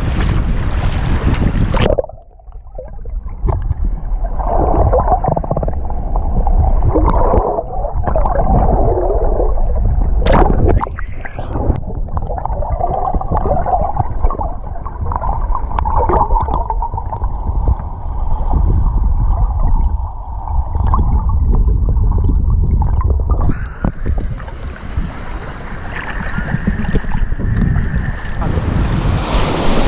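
Surf and wind on the microphone, then from about two seconds in the sound goes muffled: low underwater sloshing and rumble, with a sharp knock about ten seconds in, as the action camera in its waterproof housing is held under shallow surf. Near the end the sound opens back up as the camera comes out of the water.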